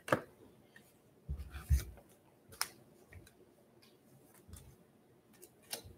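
A trading card being slid into a clear plastic penny sleeve: scattered short clicks and crinkly rustles of thin plastic and card, with low handling thumps about a second and a half in and again near the end.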